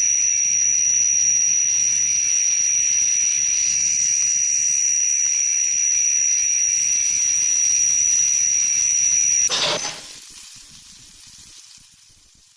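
Laser-beam sound effect: a loud, steady high-pitched whine that cuts off suddenly about nine and a half seconds in with a short burst, leaving a hiss that fades out.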